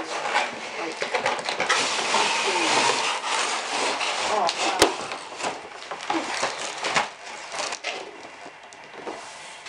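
Cardboard packaging scraping and rustling as the inner tray slides out of a large toy-blaster box, with a sharp click a little under five seconds in.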